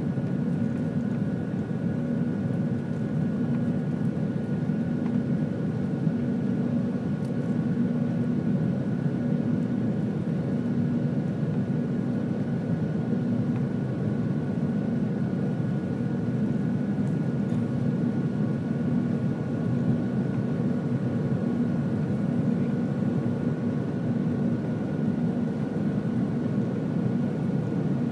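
Cabin noise of a Boeing 737-700 climbing after takeoff, heard from a window seat over the wing: the CFM56-7B turbofan engines and the rushing air make a steady low drone, with faint steady whining tones above it.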